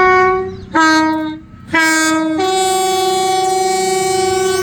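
Train horn sounding: three short blasts, then a long held blast from about two and a half seconds in, its chord alternating between two pitches from blast to blast.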